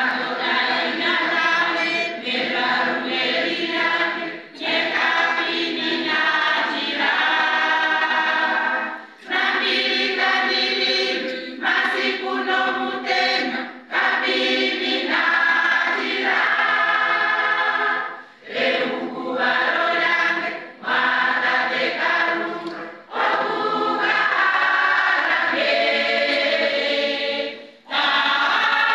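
A large women's choir singing, coming in all at once at the start, in long phrases broken by short breaths about every four to five seconds.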